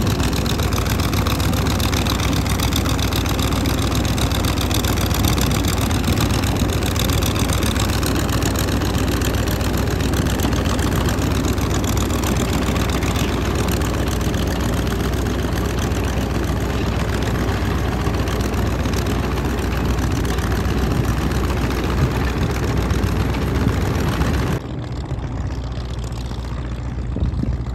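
Naturally aspirated Hino V8 diesel engine of a tillage tractor running steadily and loudly. About 25 seconds in, the sound drops slightly and turns duller, losing much of its high end.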